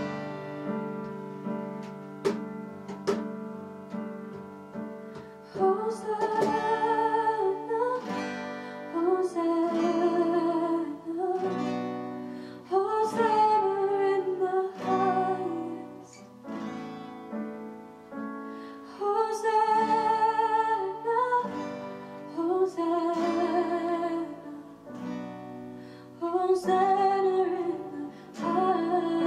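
Worship song: acoustic guitar strummed chords, with a singing voice coming in about six seconds in and carrying the melody in phrases over the guitar.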